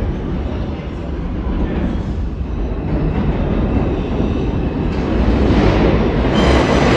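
R142-family New York City Subway train running through the station with a steady rumble that grows louder, and a high metallic squeal setting in near the end.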